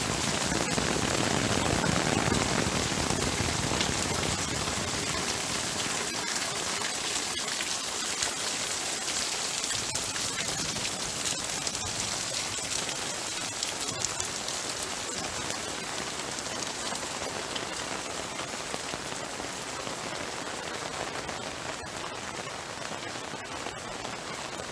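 Heavy rain pouring down, a dense steady hiss with scattered sharp drop taps, with a low rumble underneath in the first few seconds; the downpour eases slowly in loudness.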